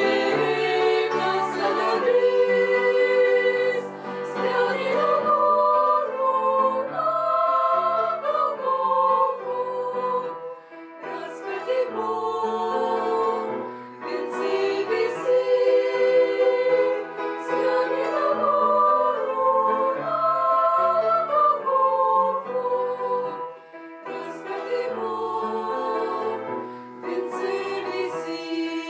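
Women's voices singing a song together in harmony, in sung phrases with short breaths between them.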